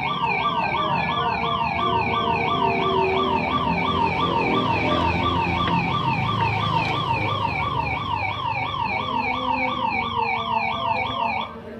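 Electronic siren wailing in a fast, even up-and-down yelp, about two and a half sweeps a second, steady in level. It cuts off abruptly shortly before the end.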